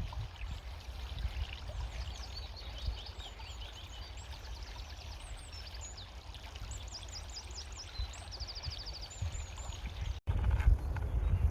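Small songbirds singing, with many short high chirps and a fast trill of about ten notes near the end, over a steady rush of running water and a low rumble.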